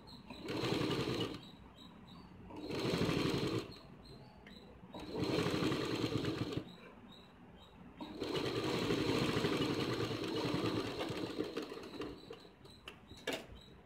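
Sewing machine stitching a piping strip onto fabric in four runs with short pauses between them, the last run about four seconds long. A sharp click near the end.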